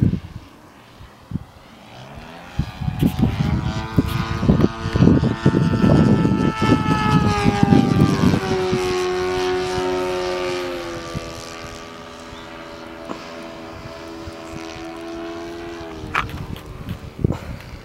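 Engine of a Great Planes U Can Do 3D .46 radio-controlled aerobatic model plane flying overhead. Its note runs high at first, drops about halfway through, holds steady, then steps down again near the end. Heavy wind buffets the microphone through the first half.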